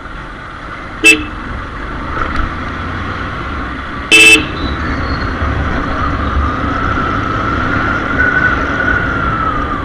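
Motorcycle riding through busy town traffic: two short, loud horn toots about three seconds apart over the steady rumble of the engine and road. Later a whining tone rises and then falls away near the end.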